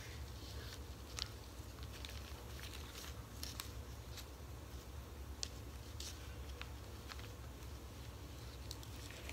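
Thin plastic freezer-bag sheet being peeled off a wet pressed corn tortilla: faint scattered crinkles and small sticky clicks over a low steady hum.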